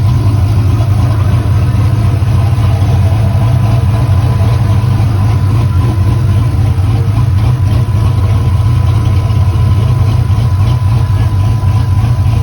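Chevy car engine idling steadily, with a constant low hum.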